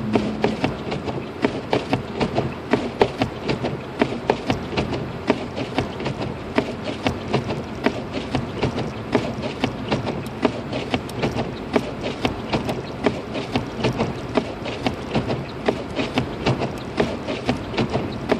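Car cabin in a snowstorm: a steady low road rumble with a dense, irregular stream of sharp clicks and ticks, several a second, that does not let up.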